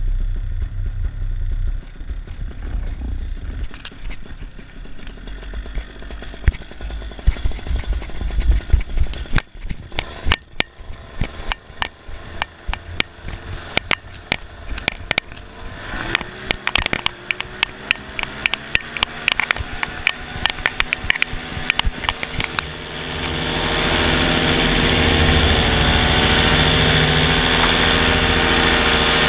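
Blackhawk 125 paramotor's two-stroke engine during a foot launch. At first there are low rumbling wind buffets and many sharp thumps from the running pilot. About halfway through, the engine climbs in pitch as the throttle opens. For the last several seconds it runs steady and loud at climb power.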